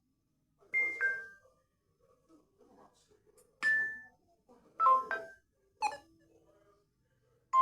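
Samsung Galaxy Tab A7 Lite notification sounds played one after another: four short electronic chimes, each a different tone pattern of one to several notes, with pauses of a second or two between them.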